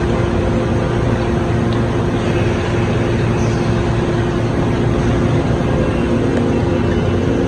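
Machinery running steadily: a constant hum with a few steady tones over an even rushing noise, as from pumps and machine tools circulating coolant.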